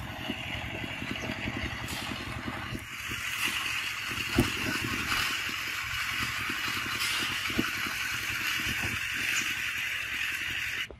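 Steady high buzzing chorus of forest insects, with a low rumble and scattered low knocks underneath. It all cuts off suddenly near the end.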